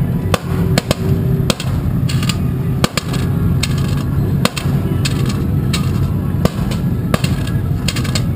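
An engine backfiring over and over, sharp irregular pops like gunshots, roughly one or two a second. Underneath is the steady drone of an engine running.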